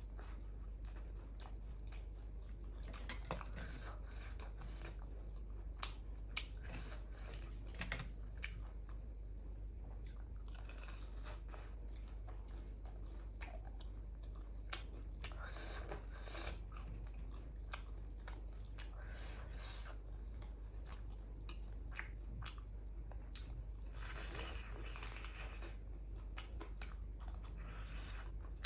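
Chewing and mouth sounds of a person eating spicy ramen, with many scattered sharp clicks and a few longer noisy stretches lasting a second or two.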